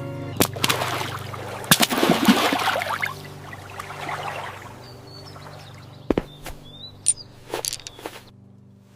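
Water pouring and splashing with sharp clicks for about three seconds, fading, then a few short bird chirps and several sharp knocks.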